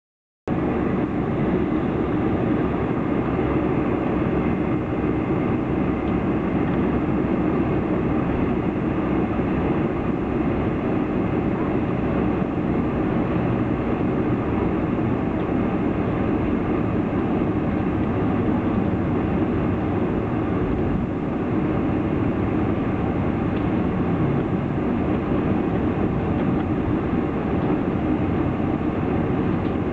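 Steady cabin noise inside a Boeing 747 as it taxis, the engines running at low power.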